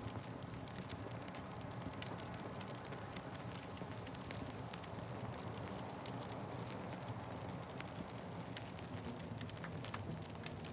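Wood fire crackling, with scattered sharp pops and snaps over a steady low rumble of flames.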